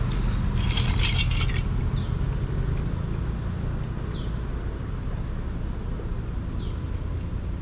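Low steady rumble of nearby road traffic, with a thin steady high insect drone over it. A quick run of clicks about a second in, and a short high falling chirp three times.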